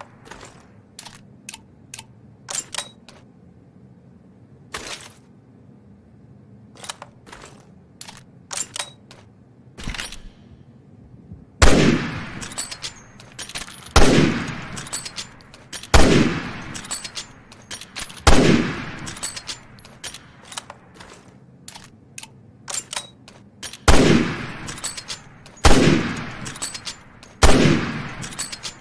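SIG-Sauer SSG 3000 bolt-action sniper rifle: a string of sharp clicks and clacks for about the first eleven seconds, then seven loud shots about two seconds apart, each trailing off slowly.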